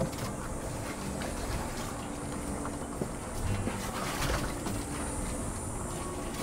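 Ford Bronco Raptor crawling slowly over a rocky trail: a low engine and drivetrain hum with occasional knocks and scrapes from the tires and suspension on rock.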